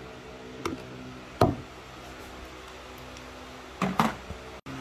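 Hard plastic knocks and taps as the car's blower intake housing parts are handled and fitted: a light tap, a sharp louder knock about a second and a half in, and two quick knocks near the end. A steady low hum runs underneath.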